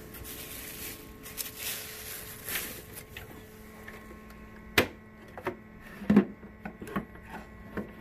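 A plastic bag rustles and crinkles for the first few seconds. Then come a few sharp clicks and knocks as the clear plastic dust canister is unlatched and lifted off an Anway Clear Trak cyclonic upright vacuum, which is switched off.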